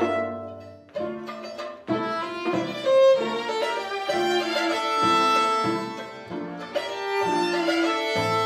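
String quartet of violins, viola and cello playing bowed, with sharply attacked notes about one, two and three seconds in, then sustained, overlapping lines.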